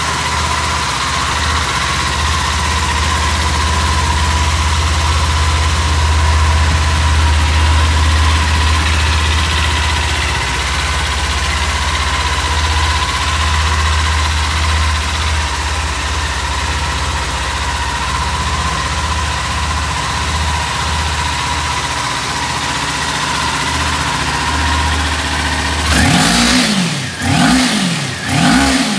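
Kawasaki Ninja 400's parallel-twin engine idling steadily, then blipped three times in quick succession near the end, the pitch rising and falling with each rev.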